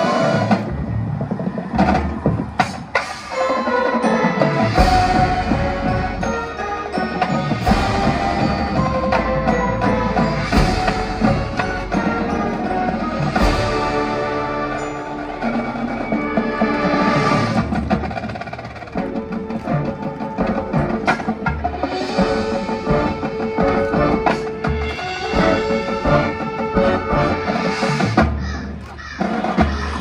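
A marching band playing its field show: sustained wind and brass chords over percussion, with frequent drum strikes.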